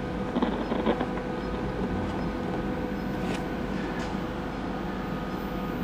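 Steady hum with faint steady tones from a powered-on vintage Admiral portable tube television while its tubes warm up after a tube replacement, with a couple of light clicks.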